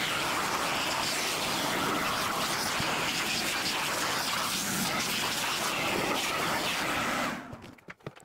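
Shop vac running steadily as it sucks debris off the floor, then switched off and winding down about seven seconds in.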